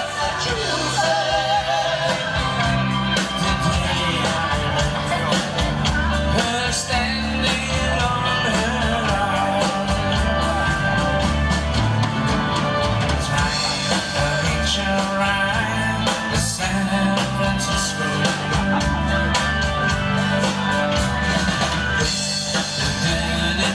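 Rock and roll song with singing over guitar and a steady, repeating bass line.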